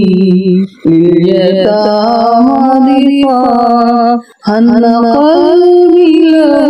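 Arabic nasheed sung by a solo voice, slow and melodic, with long held notes gliding between pitches. It breaks off briefly about a second in and again past four seconds.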